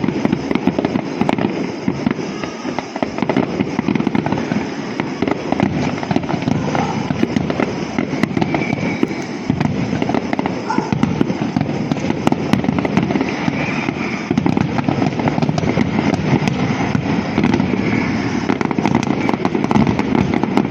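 Fireworks going off without a break: a dense, continuous run of pops and bangs.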